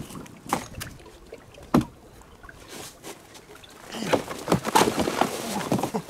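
A long-handled tool knocking and splashing in shallow, icy creek water at the bank, with a few sharp knocks in the first two seconds. About four seconds in comes a busier stretch of crunching and splashing.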